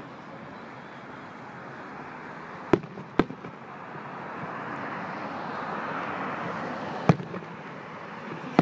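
Fireworks going off: three sharp bangs, two about half a second apart near three seconds in and one near seven seconds, over a steady hiss of background noise.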